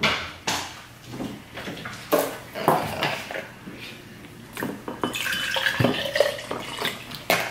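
A few knocks and clinks as a plastic juice bottle and a drinking glass are handled, then juice poured from the bottle into the glass for about two seconds, starting about five seconds in.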